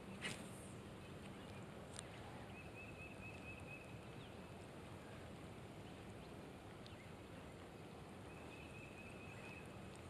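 Steady light rain falling on a pond's surface. A brief rustle of rod and reel handling comes just after the start, and a high trill sounds a few times in the background.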